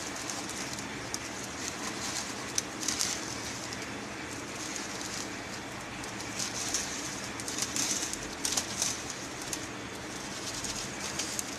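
Clear plastic packet crinkling and dry vermicelli crackling as hands crumble it onto a paper plate, in irregular crisp bursts, busiest in the middle.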